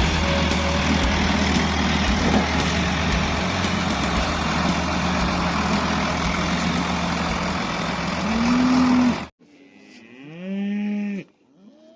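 A steady engine and rushing noise, with a short rising cow moo near its end. After the noise cuts off suddenly, a dairy cow gives one clear moo of just over a second, about ten seconds in.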